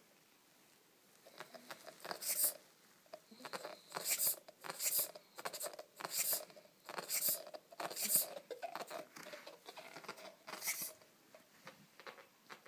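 A Weimaraner chewing and gnawing on a ball, in irregular bursts of chewing noise about one or two a second with short pauses between.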